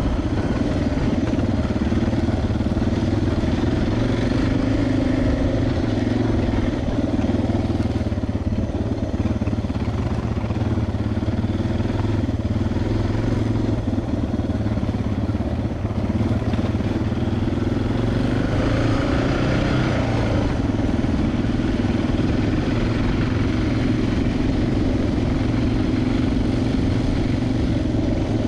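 Suzuki DR650 single-cylinder four-stroke engine running steadily while riding, its pitch rising and falling a couple of times with the throttle.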